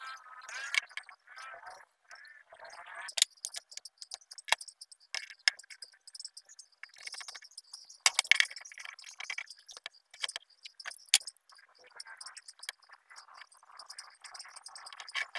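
Plastic-and-steel quick-release bar clamps and wooden parts being handled and clamped: a run of irregular sharp clicks and clacks as the clamps are set and tightened, with wood scraping and sliding in between.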